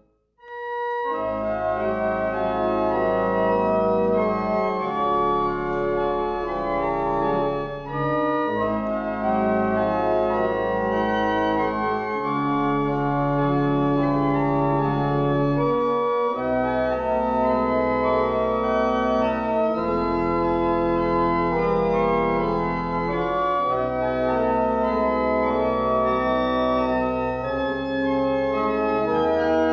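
Church pipe organ playing sustained full chords over deep pedal notes, the chords changing every second or two. It starts about half a second in after a brief silence.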